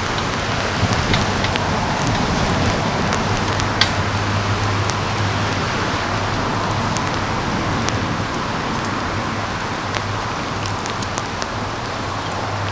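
Steady rain falling, an even hiss with scattered light taps of drops.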